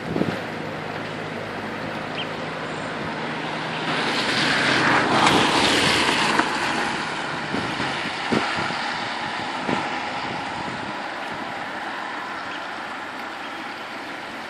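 Lifeboat launch tractor's diesel engine running as it moves the Atlantic 75 lifeboat on its trailer up the slipway, with gusting wind on the microphone. The wind swells loudest for a few seconds midway, and a couple of dull knocks come later.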